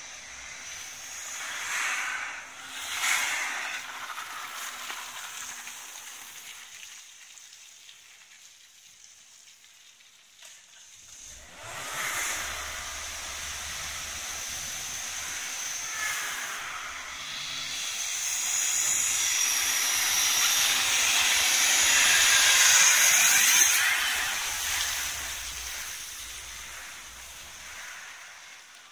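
Volvo S40 engine running hard as the car slithers through a muddy dirt track, with a hissing rush of tyres spinning and spraying mud. It swells twice: briefly early on, then building over several seconds to its loudest, and fading away near the end.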